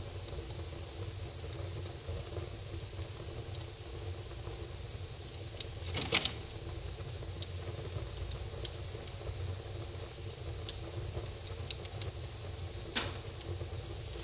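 Fire crackling in a fireplace: a steady low rumble and hiss with scattered sharp pops, the loudest cluster about six seconds in and another strong pop near the end.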